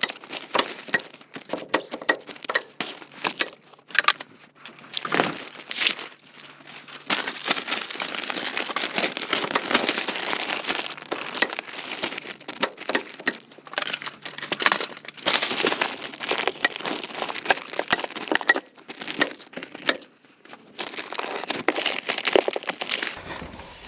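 4 mil polyethylene vapor barrier sheeting crinkling and rustling as it is handled and pulled tight, with many quick clicks and knocks mixed in.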